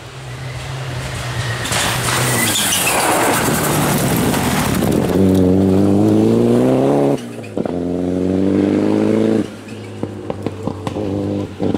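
A rally car's engine approaches and passes at speed with a loud rush of noise. It then pulls away hard up through two gears, the note rising in each gear with a short break at the shift. Near the end it drops to a lower note with a few sharp cracks.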